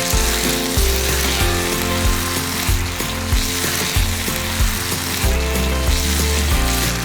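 Food frying and sizzling in a pan over background music with a changing bass line.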